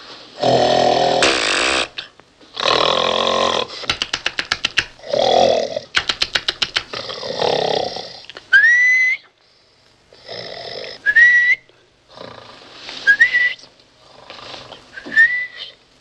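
A man snoring loudly in bed, some snores breaking into a rapid rattling flutter. From about halfway, a short rising whistle comes four times, every two seconds or so, the old trick for stopping a snorer, and the snores between the whistles are fainter.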